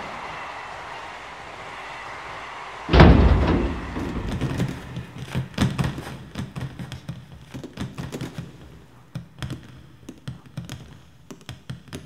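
A heavy crash about three seconds in, then many small knocks of oranges dropping, bouncing and rolling on a wooden floor, thinning out toward the end. These are remade soundtrack effects for a man falling into a load of oranges.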